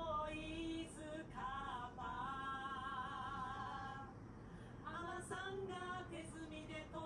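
Background music: a song with a woman singing, long held notes with vibrato.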